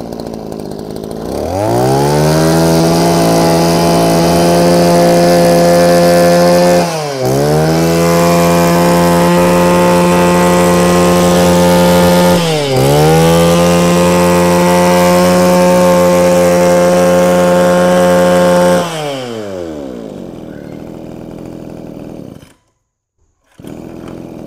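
Mitsubishi TL231 23cc two-stroke brush cutter engine revved from idle to full throttle and held high and steady, with the throttle briefly eased and reopened twice. It then drops back to a lower idle.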